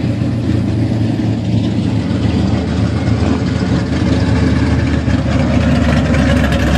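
Engines of classic cars driving slowly past at close range: a pickup truck's engine running, then a black muscle car's deeper engine note growing louder as it approaches and passes in the second half.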